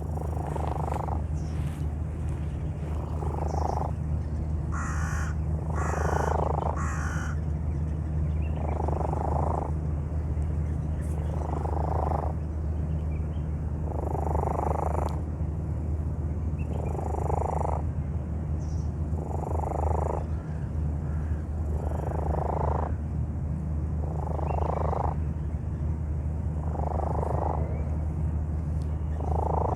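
A sick cat breathing hard close to the microphone: a heavy, noisy breath about every two and a half seconds, each lasting about a second, over a steady low hum. The abnormal breathing of an ill cat.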